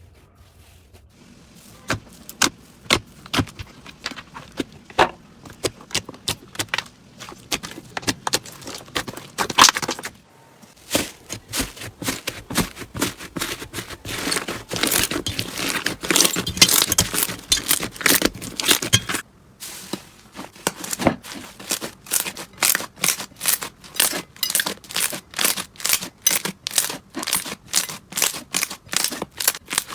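Slime being squeezed and pressed by hand, giving off rapid crackling, popping clicks. The clicks are densest in the middle and break off briefly twice. Near the end they settle into an even run of about three pops a second.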